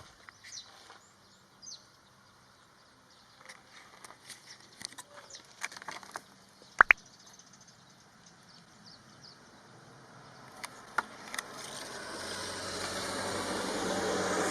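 A car approaching, its noise swelling over the last few seconds. Before it, faint bird chirps and scattered clicks, with a sharp double click about seven seconds in.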